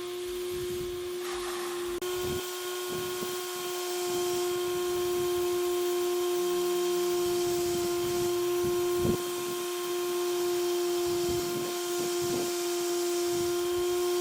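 A steady hum at one fixed pitch with overtones, unchanging throughout, with a few faint knocks under it.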